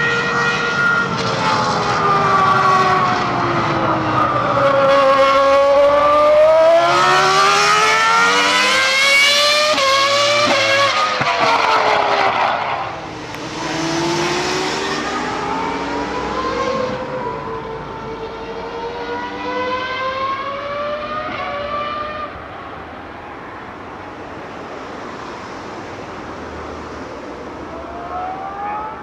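Ferrari Formula One car's V10 engine at racing revs: its pitch climbs steeply through the gears, then drops sharply on braking and downshifts, and climbs again. It is loudest in the first half, then fades as the car moves off around the circuit, with revs rising once more near the end.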